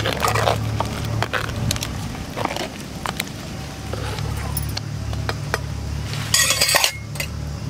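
Metal ladle clinking and scraping against a pot while stirring a simmering curry, in a scatter of short sharp clicks. A brief loud hiss comes about six seconds in.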